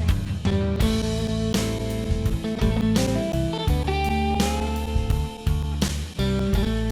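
Background music: electric guitar over bass and drums with a steady beat.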